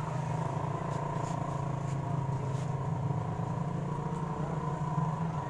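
Belarus 510 tractor's diesel engine idling steadily.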